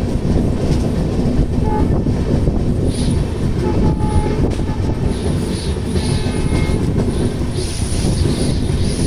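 Passenger train's LHB coaches running over the rails: a steady, loud rumble of wheels on track with wind at the open doorway, and a thin high wheel squeal on the curve that sets in about five seconds in.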